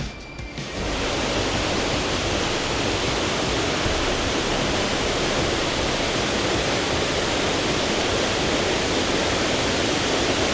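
A waterfall's steady, loud rush of falling water, which comes in about a second in.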